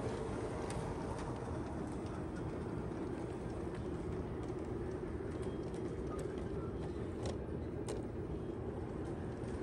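G-scale model log cars rolling past on the track: a steady rumble of their wheels on the rails, with a few sharp clicks, two of them close together late on.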